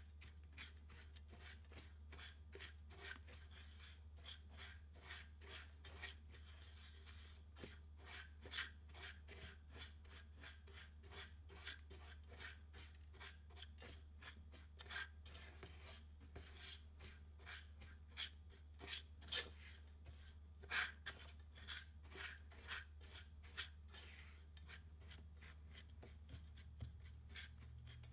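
Silicone spatula stirring and scraping buttered graham cracker crumbs around a nonstick frying pan as they toast: faint scraping in many quick, irregular strokes, a few of them louder, over a steady low hum.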